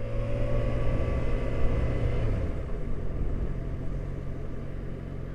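Motorcycle engine running while riding, with wind and road noise; about two seconds in the engine note drops and the sound gets quieter, then it runs on steadily.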